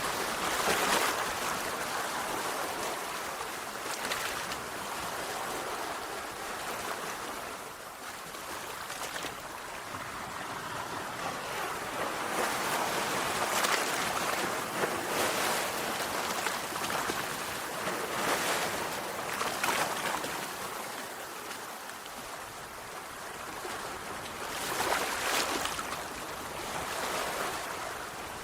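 Sea waves washing onto a shore: a continuous rush of surf that swells and eases every few seconds as each wave breaks and draws back.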